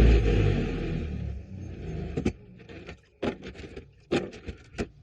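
A grinding wheel's motor switched off and spinning down, its hum fading over about a second and a half. It is followed by a string of sharp clinks and taps as small cut-off steel carriage bolt heads are handled and set down.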